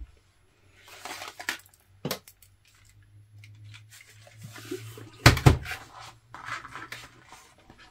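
Glass marbles clinking and rattling in a plastic tub as it is handled, with scattered small clicks. A heavier knock comes a little past halfway, as the tub is set down on the table.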